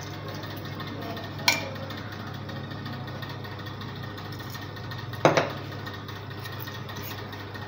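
Two sharp knocks of kitchen utensils, about a second and a half in and about five seconds in, over a steady low hum.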